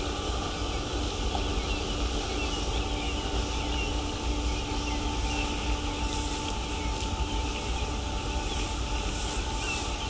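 Harbourside city ambience: a steady low rumble with a constant machine-like hum, one note of which stops about two-thirds of the way through, and faint scattered bird chirps.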